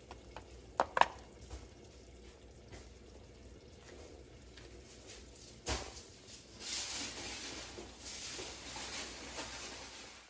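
Kitchen handling sounds: two sharp clicks about a second in and a single knock about halfway, then a soft hiss over the last few seconds.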